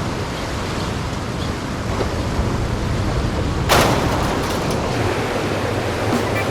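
Steady rush of ocean surf with wind, and a louder wash of a breaking wave starting about three and a half seconds in.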